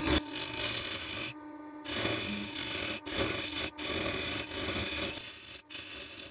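A turning tool cutting wood on a spinning lathe: scraping cutting passes about a second long, broken by short breaks, with shavings flying. A steady hum from the lathe runs underneath.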